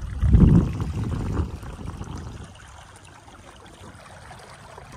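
Water rushing and trickling along the hull of a Hobie 16 catamaran moving over shallow water. A loud low rumble fills the first second and a half, then the water settles to a quieter steady rush.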